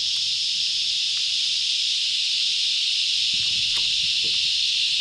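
Massed cicada chorus: a loud, steady, high-pitched drone from many cicadas calling at once.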